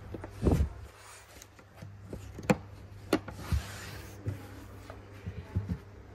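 Handling sounds in the carpeted boot of a 2024 Honda Civic as a hand presses and touches the boot floor and trim: a dull thump about half a second in, two sharp clicks near the middle, then a few light knocks.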